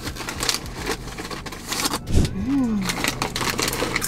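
Foil snack bag of steak-flavored Cheetos crinkling and rustling as chips are taken out and crunched, with a dull thump about two seconds in.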